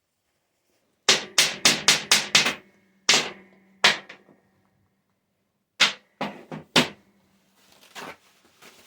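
Sharp metal-on-metal knocks: a quick run of six strikes, two more spaced out, then a second run of four, some leaving a faint metallic ring, with lighter clicks near the end.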